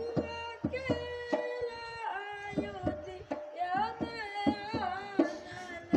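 A voice singing a wavering, ornamented melody over repeated hand-drum strikes: live devotional stage music.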